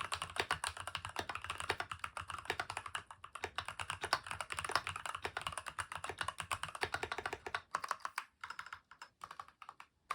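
Fast, continuous typing on a stock Keychron V2 mechanical keyboard with brown tactile switches: a dense clatter of keystrokes that thins out near the end into a few separate key presses.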